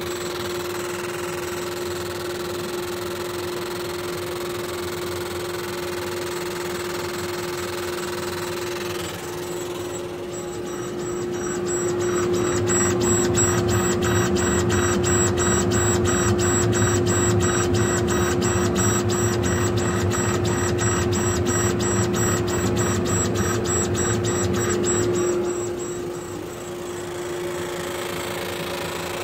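Laser engravers at work: a steady machine hum with a constant tone throughout. For most of the middle it turns louder, with a fast, even, rhythmic clatter as a Universal 75-watt laser's head sweeps back and forth across the work.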